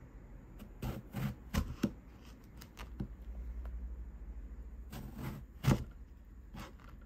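Chef's knife slicing through an eggplant and knocking down onto a plastic cutting board: a run of irregular knocks, four in the first two seconds and a louder pair about five to six seconds in.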